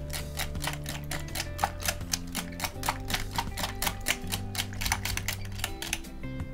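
Metal coil whisk beating an egg-and-milk batter in a glass bowl, the wire clicking against the glass about six or seven times a second, over background music with held low notes. The clicking stops shortly before the end.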